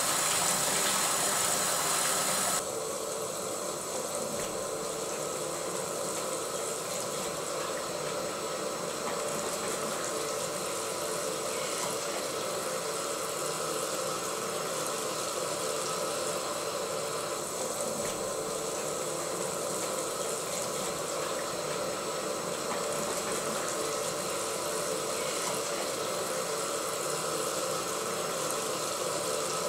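Tap water running into a bathroom sink, a steady hiss that drops a little in level about two and a half seconds in.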